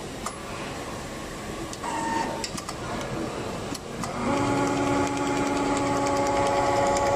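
Richpeace automatic template sewing machine: a few clicks and a short tone, then about four seconds in the machine starts stitching, a steady motor hum with rapid, even needle ticking.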